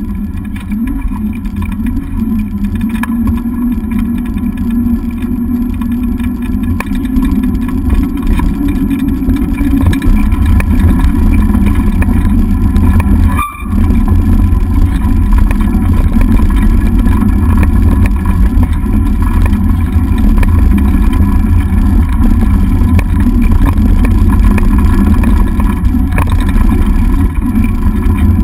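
Steady low rumble of a dog scooter rolling fast over a gravel road, picked up by a camera mounted on the scooter's handlebars, with wind on the microphone. There is a brief dip about halfway through.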